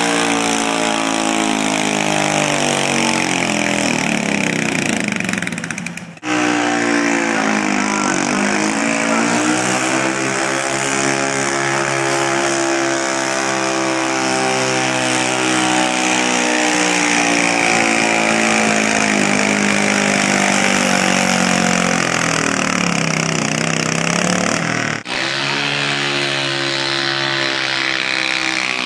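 Super stock garden tractor engine running hard under load while dragging a pulling sled. The pitch falls near the end of a run, then the sound breaks off abruptly twice, at about six seconds and near the end, as another run takes over; in the middle run the pitch dips, climbs back, holds steady and sags again.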